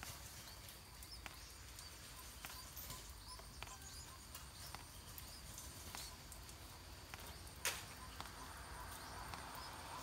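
Scattered raindrops dripping and tapping on leaves, with one louder tap about three-quarters of the way through.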